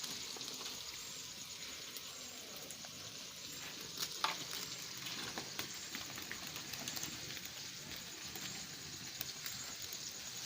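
Fish with onion frying in hot coconut oil in an iron kadai: a steady sizzle with scattered crackles and one sharper pop about four seconds in.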